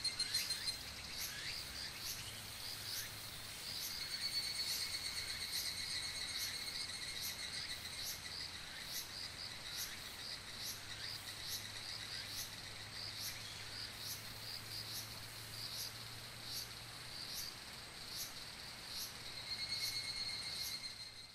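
Higurashi evening cicadas (Tanna japonensis) singing: a run of short repeated notes, about two a second, with a second, steadier trilling song rising over them three times, near the start, about four seconds in and near the end.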